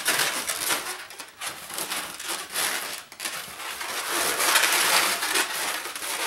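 Twisted latex modelling balloons rubbing and squeaking against each other and against hands as a balloon sculpture is turned over and handled, a steady crackle of rubbing that grows a little louder about four to five seconds in.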